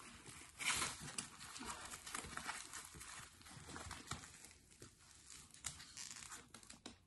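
Faint plastic wrap rustling and light clicks as a leather handbag with a plastic-wrapped handle is handled, with a brief louder rustle about a second in.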